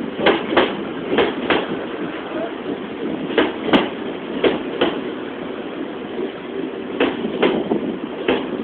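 Electric commuter train rolling slowly past a station platform, with a steady rumble. Its wheels clack over a rail joint in pairs, a pair every second or two.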